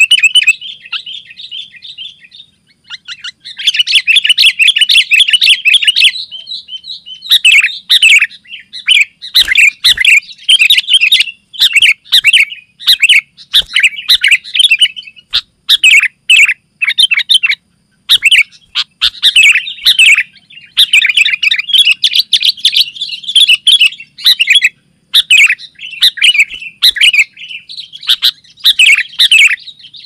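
Sooty-headed bulbul singing in full, fast voice: dense runs of quick, chirping whistled phrases with only brief pauses, one about two seconds in, another about halfway and one near the end.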